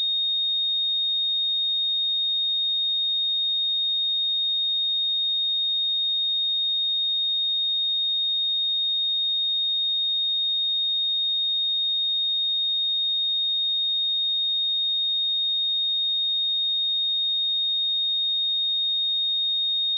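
A pure 3705 Hz sine-wave test tone, a single high-pitched steady tone held at a constant level.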